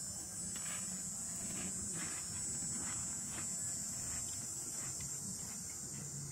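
Insects buzzing steadily in a high, unbroken band, with faint crunching about twice a second from chewing a graham cracker topped with a chunk of canned calamari.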